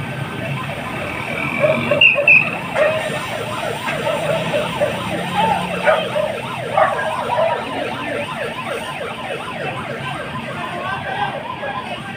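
Emergency vehicle siren sounding in quick repeated up-and-down sweeps over busy street noise, with a low engine hum underneath.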